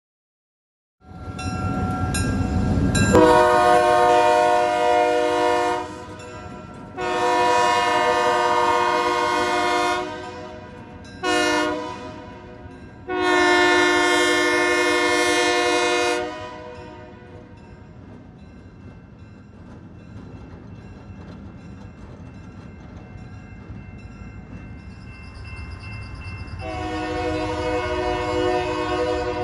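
Diesel switcher locomotive C&BL 111 sounding its horn for a grade crossing: two long blasts, a short one and a long one, each a steady chord of several notes, with the engine rumbling beneath. A further long blast starts near the end.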